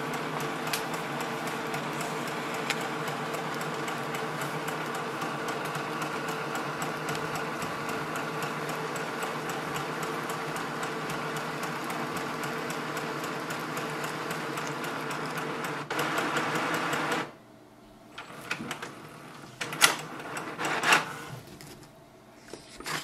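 HP DeskJet 3772 all-in-one printer's feed motor running steadily, a whirring with a fixed hum, as it pulls a page through its sheet-feed scanner to make a copy. The whirring stops suddenly about 17 seconds in, and a few sharp paper-handling knocks follow.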